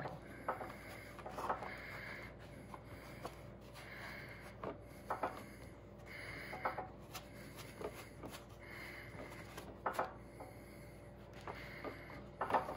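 Hands pressing and smoothing sculpting clay onto the head and neck of a taxidermy manikin: faint rubbing with scattered soft taps and knocks.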